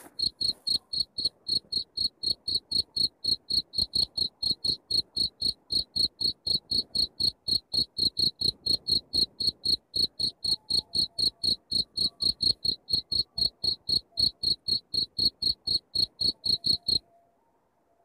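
Black field cricket calling: a steady run of short, high chirps, about three to four a second, that stops near the end.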